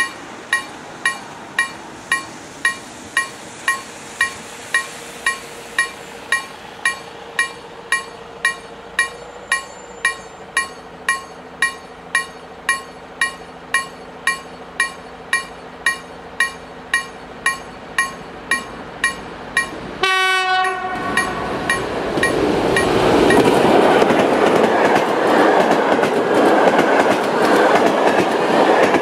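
Level-crossing warning bell ringing about twice a second while the Fiat-engined SU45 diesel locomotive approaches. About twenty seconds in the locomotive gives a short horn blast, and then the loud, steady noise of the locomotive and its train passing takes over.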